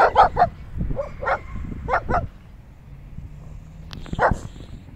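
Dog barking in a quick run of about seven short barks, then one more bark after a pause about four seconds in: alert barking at something it has spotted.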